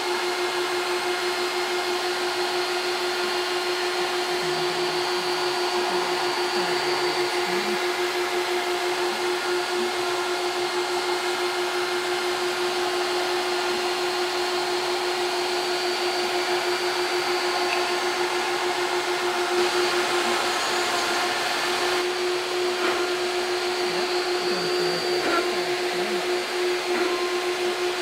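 Shapeoko CNC router milling an aluminium plate with a single-flute end mill: the router motor gives a steady high whine, over the continuous hiss of a vacuum hose nozzle sucking up the chips at the cutter.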